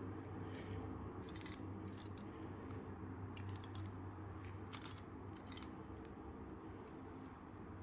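Plastic clicks of a 5x5x5 Rubik's cube's layers being turned, in short bursts five or six times, with a steady low hum underneath.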